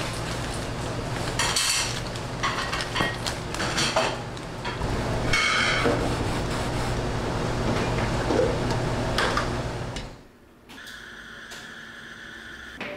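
Knocks and clatter of things being handled at a work counter over a steady low hum. About ten seconds in this stops and a quieter room tone with a steady high whine follows.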